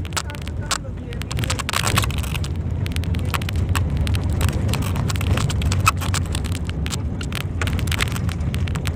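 Car driving slowly along a town street, heard from inside the car: a steady low rumble of engine and tyres, with frequent short clicks and knocks.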